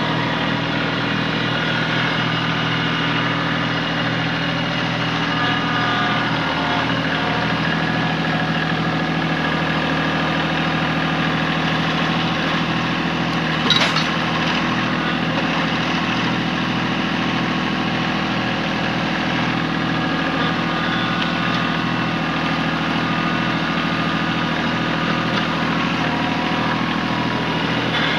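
Kubota tractor's diesel engine running steadily at a constant speed, with one sharp clink of metal about 14 seconds in.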